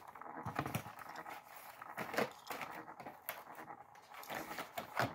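Faint, scattered clicks and rustles of fingers handling a small die-cast toy car.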